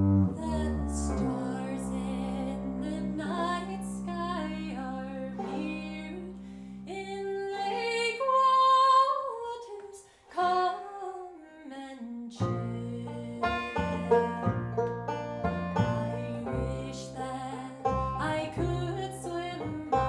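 Acoustic folk trio: a woman sings a slow melody over long-held upright bass notes and banjo. About twelve seconds in, a steady picked rhythm from the banjo and plucked bass takes over.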